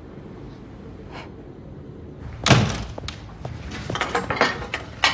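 A door shutting with a heavy thud about halfway through, followed by a run of light clicks and knocks.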